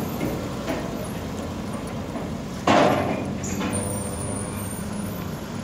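Motor vehicle engine running steadily, with a sudden loud burst of noise about two and a half seconds in.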